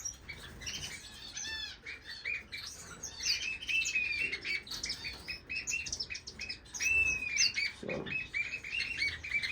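Many small captive finches chirping and calling together: a dense, continuous chatter of short high peeps, with a couple of longer drawn-out notes about four and seven seconds in.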